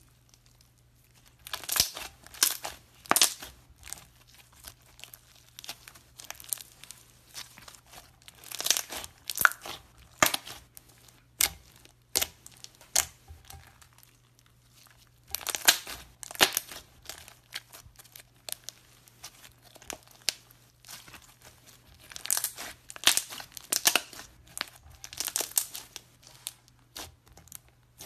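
Pink slime being pressed, squeezed and pulled apart by hand, crackling and popping in short spells of sharp clicks every few seconds with quiet gaps between.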